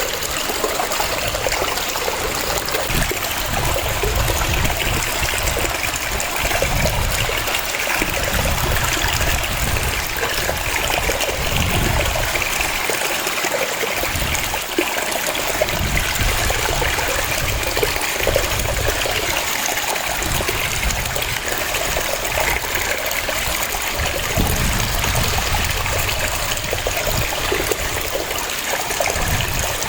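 Waterfall: water cascading and splashing in a steady rush, with a low rumble that swells and fades every few seconds.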